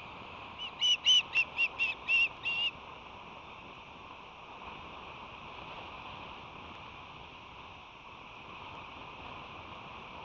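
Osprey calling: a quick series of about eight short, sharp whistled chirps over roughly two seconds, starting about half a second in.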